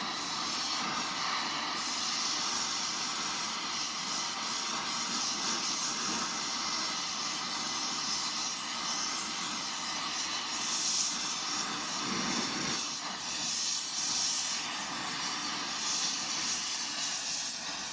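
Blow torch flame hissing steadily as it heats steel for forging.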